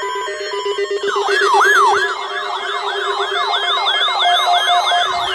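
Electronic alert alarms sounding together: a two-pitch alternating beep over a steady pulsing tone, joined about a second in by fast up-and-down electronic siren sweeps, about three a second, layered with a second, higher siren. Near the end one tone starts gliding downward.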